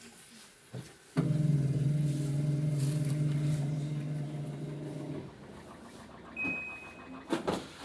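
A washing machine's electric motor switches on with a click about a second in, hums steadily for about four seconds, then dies away. A short high beep and a sharp knock follow near the end.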